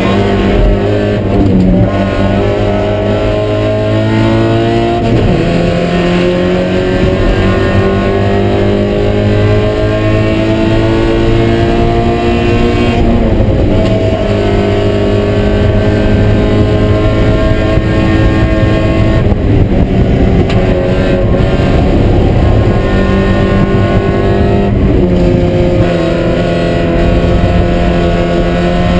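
Mazda Miata four-cylinder race engine heard from inside the stripped cockpit at racing speed, its pitch climbing and then dropping back several times as the driver shifts gears and works through corners.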